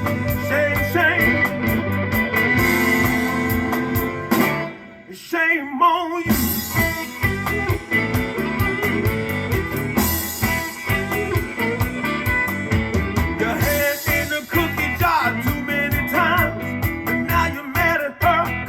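Electric blues band recording with electric guitar, bass and drums, playing back over a home hi-fi speaker system. About four and a half seconds in, the bass and drums drop out for roughly a second and a half, then the full band comes back in.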